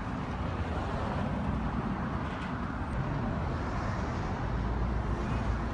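Steady low rumble of road traffic and vehicles.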